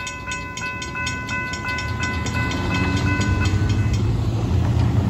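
Railroad crossing bell ringing at about three strikes a second while the gates lift, stopping about four seconds in. Under it a low rumble of road vehicles driving over the crossing grows louder.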